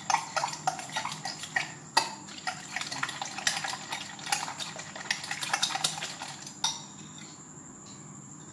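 Eggs with chopped tomato, onion and curry leaves being beaten by hand in a glass bowl: rapid clinks of the utensil against the glass with a wet slosh, stopping a little before the end.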